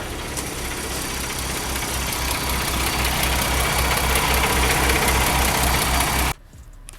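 Paccar MX13 inline-six diesel of a Kenworth T680 running at idle, most likely after the new fuel bowl has been fitted. It has a steady low throb, grows gradually louder, and stops abruptly near the end.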